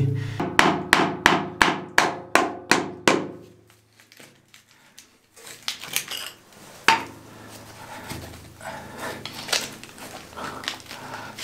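A quick run of about ten sharp knocks, roughly three a second, in the concrete tank. After a short pause comes scraping and rustling as tree roots are pulled by a gloved hand from a hole in the tank wall, with one louder knock among them.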